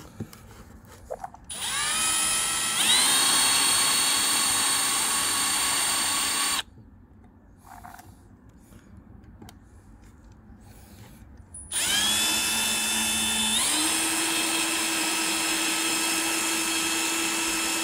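Power drill running twice, its bit boring out a pin that holds the cogs of a Shimano 10-speed cassette to its spider. Each run spins up with a rising whine and then holds steady. The first lasts about five seconds. The second starts about two-thirds of the way through, steps up in pitch shortly after starting, and runs on past the end.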